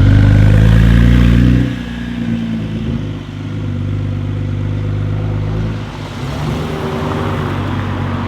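Porsche 992 Carrera S twin-turbo flat-six revving, climbing slightly, then dropping off abruptly about a second and a half in. It then runs on steadily at much lower revs.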